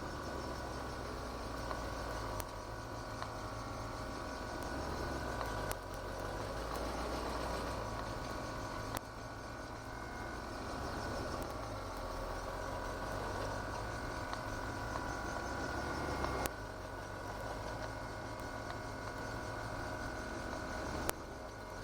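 GT40's engine running steadily at low parade speed, heard from the driver's seat. A few sharp clicks or knocks come through now and then, each followed by a brief dip in the engine sound.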